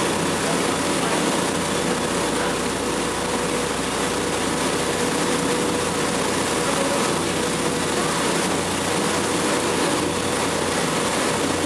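Excursion boat under way: its engine running steadily with the rush of water along the hull.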